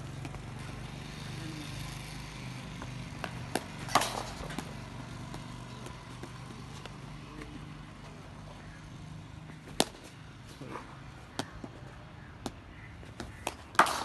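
A cricket bat striking the ball in net practice: three sharp cracks about 4, 10 and 14 seconds in, with a few lighter knocks between them. A low steady hum runs underneath.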